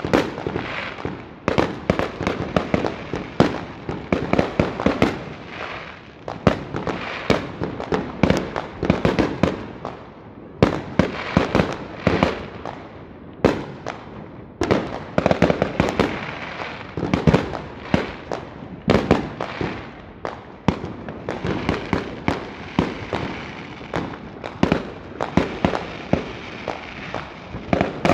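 Many aerial fireworks going off at once, a nearly unbroken barrage of overlapping bangs with a couple of short lulls.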